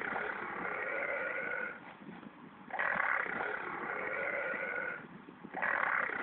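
Pet rabbit making big burps: long, rough, drawn-out sounds that each start abruptly and last about two seconds, one running at the start, another about three seconds in and a third near the end.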